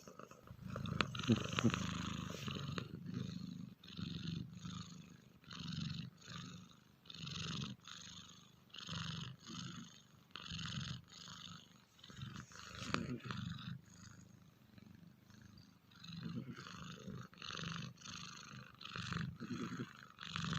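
Sleeping cat snoring, a rhythmic rasp with each breath, a little more than one breath a second.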